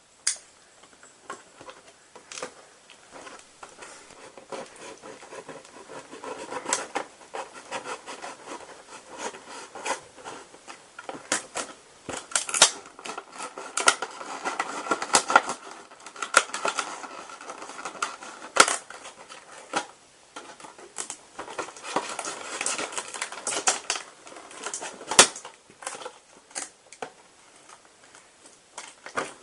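Scissors snipping through a hard plastic clamshell blister pack, with the stiff plastic and its cardboard insert crackling and rustling as hands pull it apart. The clicks and crackles come irregularly, with a few sharp, loud snaps.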